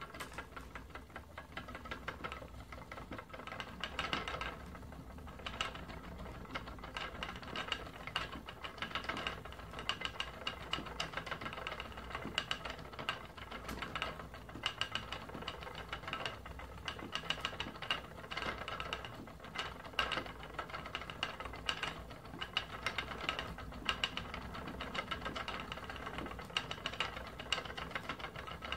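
Wooden flyer spinning wheel running steadily as merino is spun into yarn: a rapid, irregular ticking rattle from the turning wheel, flyer and bobbin over a constant low hum.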